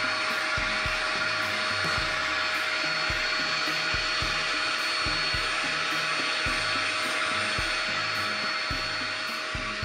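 Dust collector's blower running steadily, with a constant whine over the rushing air, as its flexible hose sucks sawdust off the floor.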